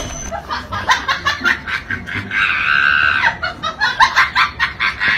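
A person laughing hard in rapid short bursts, with a held high-pitched squeal of laughter in the middle.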